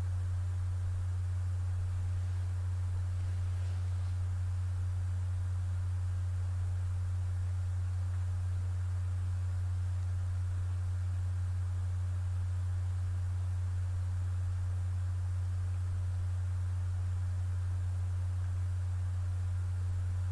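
A steady low hum at one pitch, with no other clear sound over it.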